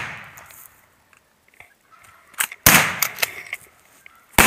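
Shotgun blast dying away in a long echo, then a second loud shotgun-like bang nearly three seconds in that fades the same way, and a shorter sharp bang at the very end.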